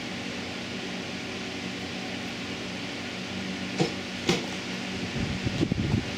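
Steady hum of a fan or ventilation unit with a hiss. About four seconds in come two sharp knocks, followed by irregular low rustling and clatter near the end.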